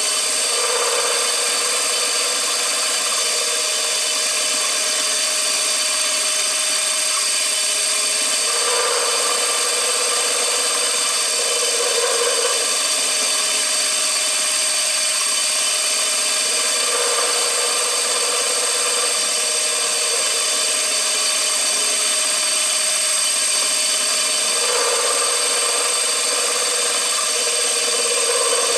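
CNC machine running: a steady high whine with several fixed tones, and a lower tone that swells for about a second every few seconds as the machine works.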